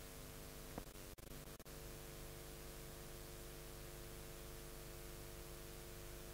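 Hiss and a steady hum from a blank stretch of videotape, with a sharp click about a second in followed by a few brief dropouts.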